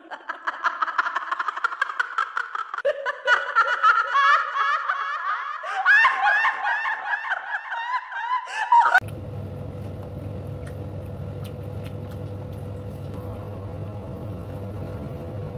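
High-pitched, cartoon-like giggling and snickering from an animated intro sound effect for about nine seconds. It cuts off suddenly to a steady low hum with a few faint clicks.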